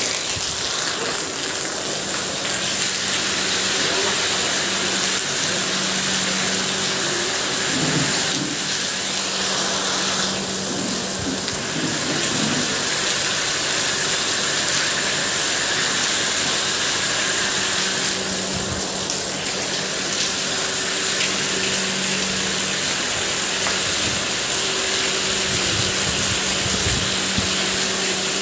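Heavy rain falling steadily on a waterlogged paved yard: a dense, even hiss, with a faint steady hum underneath.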